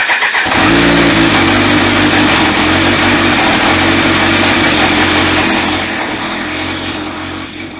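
Kawasaki Ninja H2's supercharged inline-four catching on the starter and then idling steadily, run briefly after an oil change to circulate the fresh oil before topping up. The sound grows quieter over the last couple of seconds.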